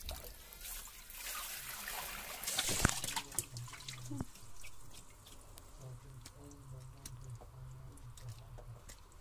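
Water splashing and trickling in a plastic tub as fish are washed by hand under a tap, with the loudest splash near three seconds in. Afterwards softer dripping and small wet clicks.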